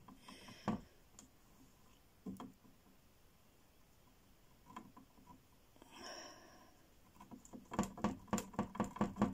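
A quick run of light taps, about six a second, starting near the end: a fine paintbrush dabbing acrylic paint onto the portrait board. Before that, only a few faint scattered ticks.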